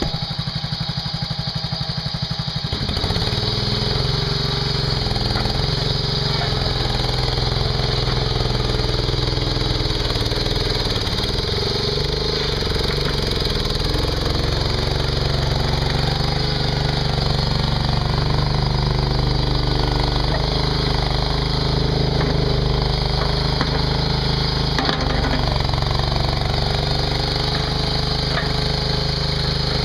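Mini skid steer's engine idling with an even chug, then brought up to a louder, steady working speed about three seconds in and held there.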